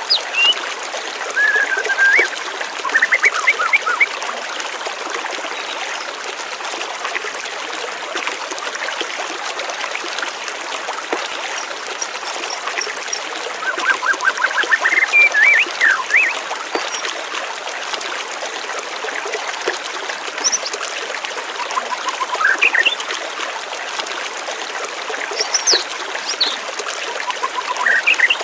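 Water trickling and flowing steadily, like a small stream, while birds chirp in short bursts of rapid notes a few times.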